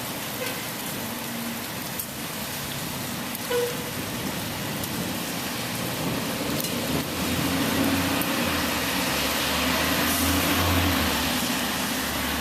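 Steady rain falling on the ground. A vehicle passes on the wet road: its engine rumble and tyre hiss swell from about seven seconds in and fade near the end.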